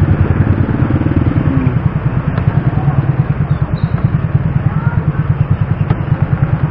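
Motorcycle engine idling, a steady, rapid, even low pulse.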